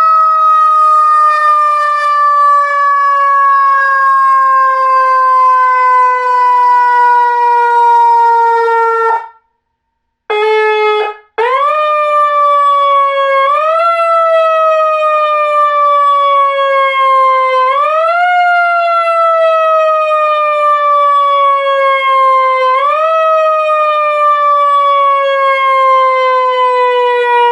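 Whelen Alpha-series electronic siren sounding its simulated mechanical-siren tone. It winds slowly down in pitch and cuts off about nine seconds in, gives a brief blip, then winds up again and is pushed back up three more times, sagging slowly in between like a coasting mechanical siren.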